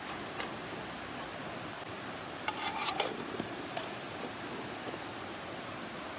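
Metal lid set onto a rectangular metal mess tin and pressed down: a quick cluster of clinks and scrapes about two and a half seconds in, then a couple of lighter taps, over a steady background hiss.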